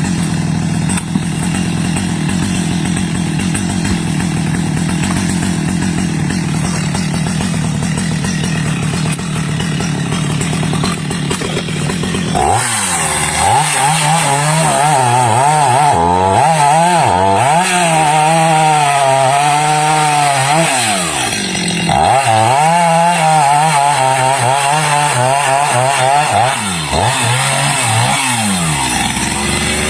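Stihl two-stroke chainsaw running at a low steady speed, then opened up to full throttle about twelve seconds in and sawing into teak wood, its pitch wavering under the load. It drops off briefly partway through the cut and then comes back up to full speed.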